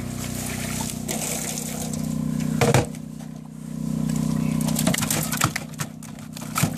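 Live carp tipped from a wet landing net into a plastic crate: water splashes and drips, then the fish slap and flap against the crate's plastic in a rapid run of knocks and clicks over the last couple of seconds. A steady machine hum runs underneath.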